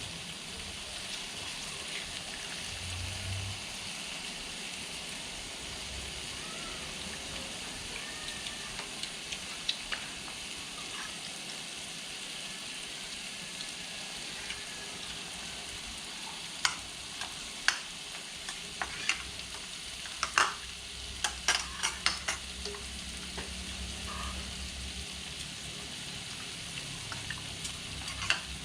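Meat sizzling steadily on a moo kratha grill pan. From just past the middle there is a run of sharp clicks and taps, like utensils knocking on the pan.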